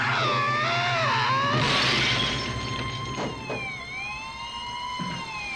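A man yells as he is thrown, then lands on a car with a crash and breaking windshield glass about two seconds in; after that a police siren wails, slowly rising and falling.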